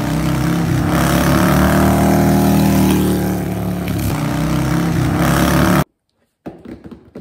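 Motorcycle engine running hard and revving, loud and steady, cutting off suddenly about six seconds in.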